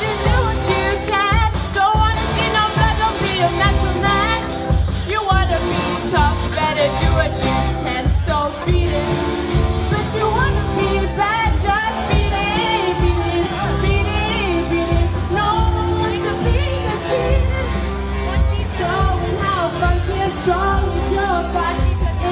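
A rock band playing a pop-rock song, with a lead vocal over a steady drum and bass beat.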